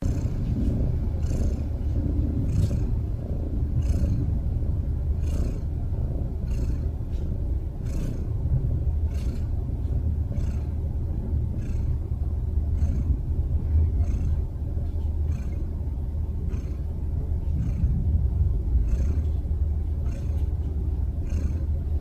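Domestic cat snoring in its sleep: a short, airy wheeze about every second and a quarter over a steady low rumble.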